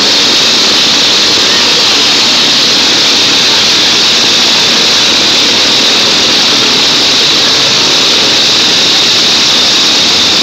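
Several riding lawn mower engines running together in a mower demolition derby: a loud, steady din with no single engine standing out.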